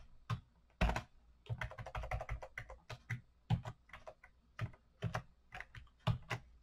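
Typing on a computer keyboard: irregular keystrokes, some in quick runs.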